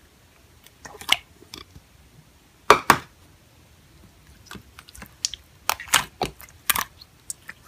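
Clear slime being played with: irregular sticky pops and sharp crackling clicks, with short quiet gaps between them.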